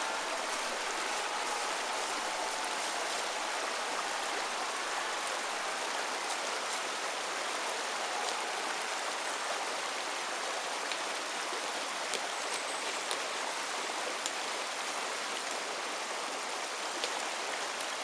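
Creek water rushing over rocks in a small cascade, a steady even rush.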